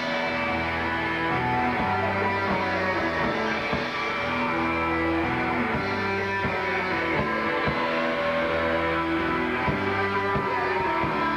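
Live rock band playing a song, electric guitar to the fore, with sharp beats running steadily underneath.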